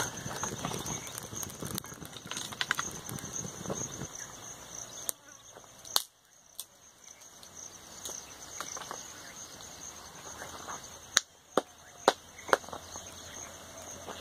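Steady high-pitched insect chirring, cut through by sharp knocks: one about five seconds in, one about six seconds in, and four more near the end, each about half a second apart.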